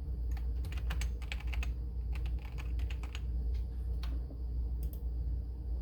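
Keys typed on a computer keyboard while entering a file name: two quick runs of keystrokes, then a couple of single key presses near the end, over a steady low hum.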